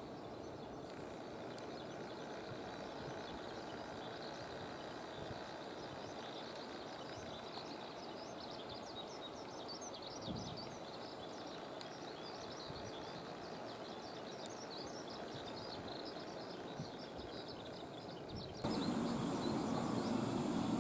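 Steady outdoor background hum with many short bird chirps, busiest in the second half. Near the end it cuts suddenly to the louder sound of a Tobu 30000 series electric train pulling into a station platform.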